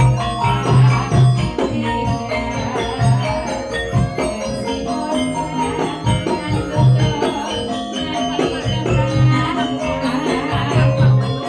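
Live Javanese campursari music: gamelan-style pitched percussion playing over a steady beat with a repeated deep low pulse.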